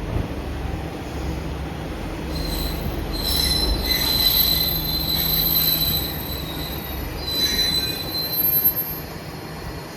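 KiHa 40 diesel railcar rolling into a station with a low rumble, squealing at a high pitch as it slows. The squeal comes in from about two seconds in and dies away near the end.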